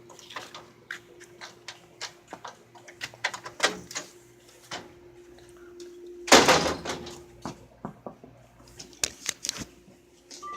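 Irregular knocks and clicks over a faint steady hum, with one louder scraping rush about six seconds in.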